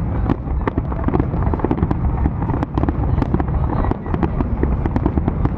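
Fireworks display going off in a dense, rapid barrage: many sharp bangs and crackles, one after another, over a continuous low rumble.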